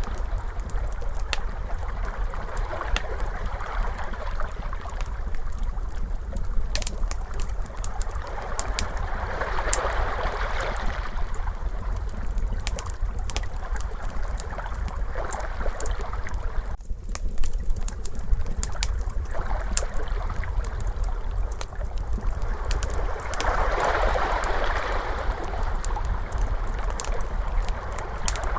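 Crackling fire, with frequent sharp snaps and pops, layered over ocean waves that swell and recede, with two larger swells, and a steady low rumble underneath.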